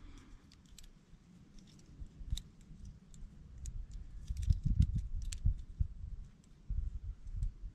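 Light metallic clicks and ticks from a small folding Soto canister stove as its pot-support arms are opened and handled, with a few dull knocks in the second half.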